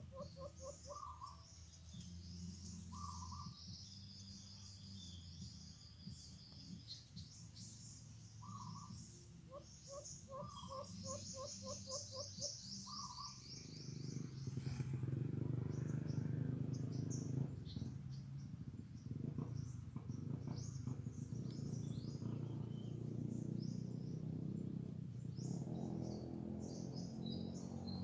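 White-eared brown dove cooing: quick runs of low, even hoots, about five a second, in bouts over the first half, while smaller birds chirp high above. From about halfway, a louder low rumbling noise takes over.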